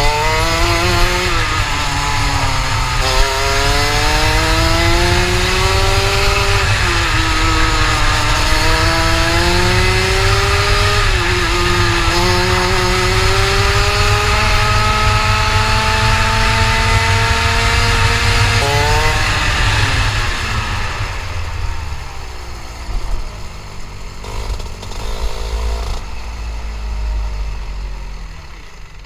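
Rotax Max kart's 125 cc single-cylinder two-stroke engine heard onboard at the driver's helmet, its pitch climbing through each straight and dropping sharply at each braking point, several times over. About 20 seconds in it falls back to a quieter, uneven low-revving burble as the kart slows off the track.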